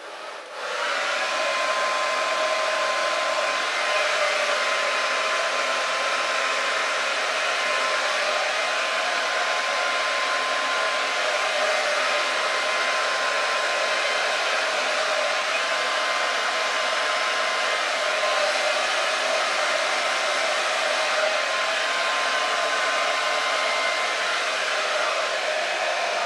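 Handheld electric hair dryer running steadily, its air stream blowing wet acrylic paint across a canvas, with a thin steady whine over the rush of air. It switches on about half a second in.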